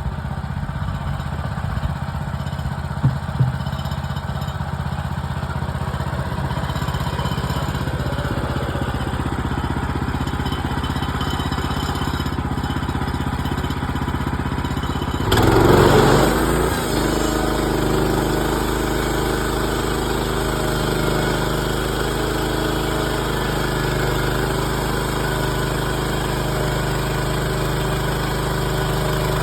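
Gas engine of a Woodland Mills HM130 Max portable bandsaw mill running steadily. Two sharp clicks come about three seconds in. About halfway there is a brief louder burst, and the engine then runs with a heavier, fuller sound.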